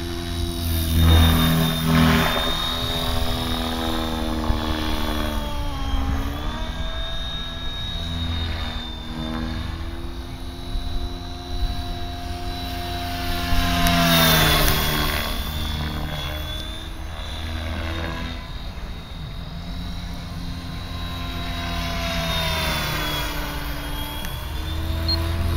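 Electric RC helicopter in flight, driven by a Scorpion 4025-890 brushless motor on a 6S battery: a steady rotor drone with a high motor whine above it. The pitch dips and rises again several times, and the loudness swells and fades as it flies.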